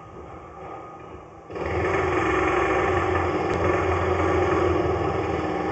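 Engine running steadily, cutting in suddenly and loudly about a second and a half in, over a low rumble.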